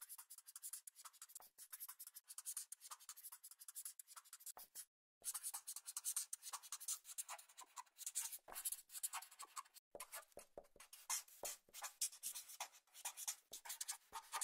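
Pen-on-paper writing sound effect: quick, faint, scratchy strokes with a half-second break about five seconds in.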